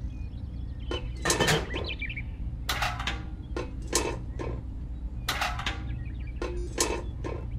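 Small tin buckets clinking and knocking as they are handled and set down on a toy truck's flatbed: a string of short, sharp taps, over a low steady hum.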